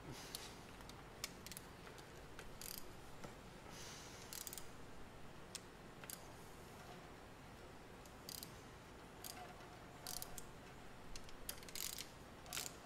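Socket ratchets clicking in short bursts with pauses between, as cylinder head bolts on a Ford 289 V8 are worked back and forth to ease them out.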